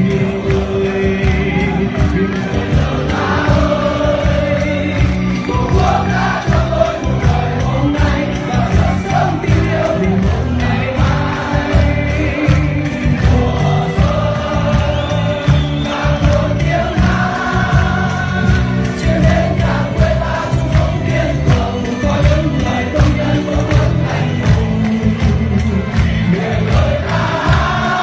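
Music with a choir singing over a steady, heavy low beat.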